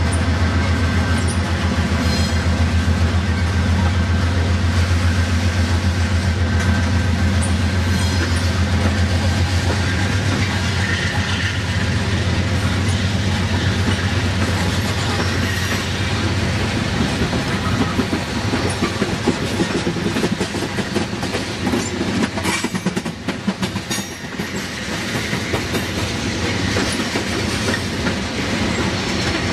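Freight train of loaded tank cars rolling past close by, the wheels clicking and rattling over the rail joints. A deep diesel locomotive drone is strong in the first half and fades away as the locomotives pull off down the line.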